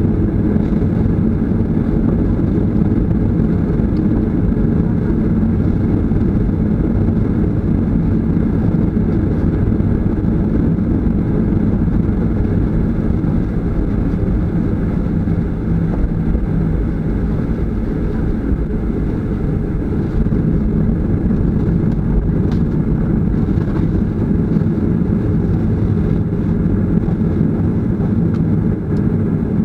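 Jet airliner's engines at taxi power, heard inside the cabin as a steady low drone while the plane taxis to the runway.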